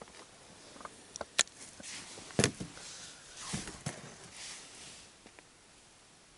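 Scattered light clicks and knocks with brief rustling: fishing tackle being handled while a small wobbler is put on the line. The sharpest knock comes about halfway through.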